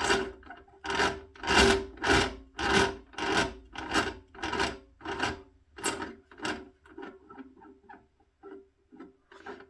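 Repeated rubbing or scraping strokes, about two a second, strong at first and growing fainter and more broken after about six seconds, over a faint steady hum.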